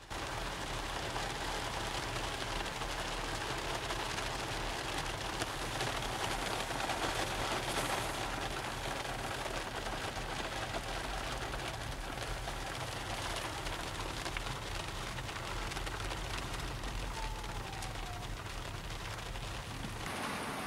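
Heavy rain pelting a car's roof and windshield, heard from inside the moving car as a dense, steady hiss over the low rumble of the car.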